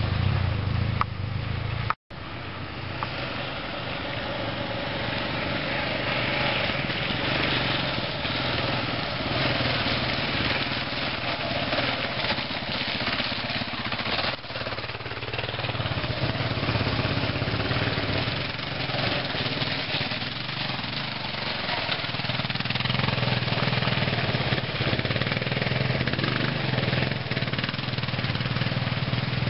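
Dual-sport motorcycle engines running steadily on a dirt trail, with one motorcycle passing close by about halfway through. The sound cuts out for an instant about two seconds in.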